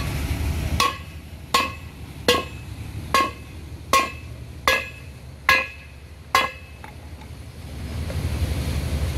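Hammer striking metal during a water-pipe repair: eight ringing blows, about one every 0.8 seconds, that stop a little past the middle. A low rumble runs underneath.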